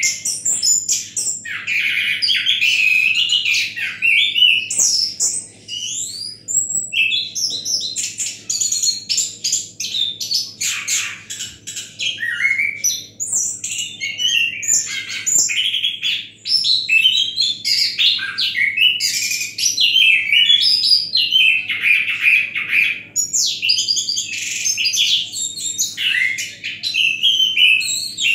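Orange-headed thrush (anis kembang) singing a long, relaxed, varied song of rapid chirps, trills and whistled glides, broken only by a few short pauses.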